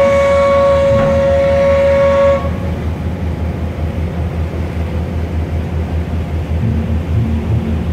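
A ship's whistle sounding one long blast that cuts off about two and a half seconds in, over a steady low rhythmic thudding that carries on after it.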